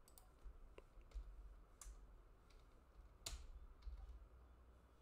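Faint computer keyboard keystrokes: about half a dozen scattered key clicks as a short word is typed, the loudest a little past three seconds in, over a low steady hum.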